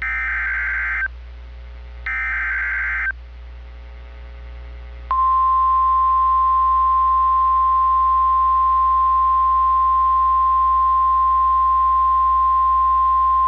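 NOAA Weather Radio emergency alert. First come two one-second bursts of the SAME digital header's data tones, a second apart. About two seconds later the loud, steady 1050 Hz warning alarm tone sounds as one unbroken beep. It is the signal that opens a severe thunderstorm warning.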